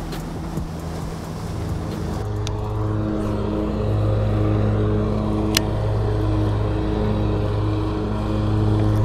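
Lawnmower engine running steadily, growing louder about two seconds in, with wind buffeting the microphone. One sharp click a little past halfway.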